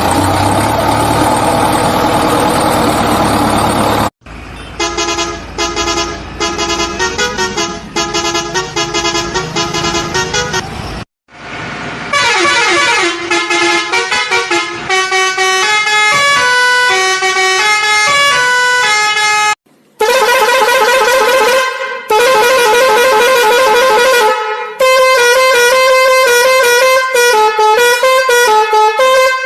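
A dense, buzzing horn-like sound for about four seconds, then a string of electronic beeping tunes, one note at a time, broken into short segments by sudden cuts.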